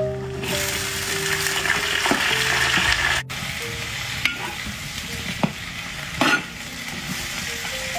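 Food frying in hot oil, sizzling loudly for the first three seconds. After a sudden break it sizzles more quietly, with a few short sharp sounds.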